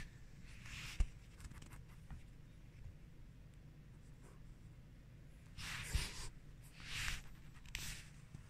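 Quiet, short scratchy rustles against carpet, a few of them about six to eight seconds in, with a light tap about a second in.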